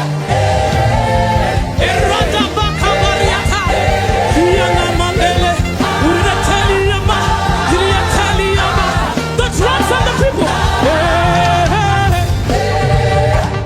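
Live gospel worship song: a singer holding long, bending notes over a band accompaniment with a steady beat.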